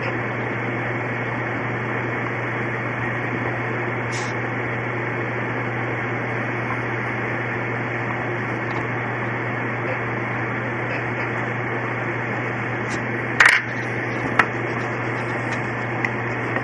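Steady hiss with a low hum, broken by a few sharp clicks; the loudest click comes about three-quarters of the way through.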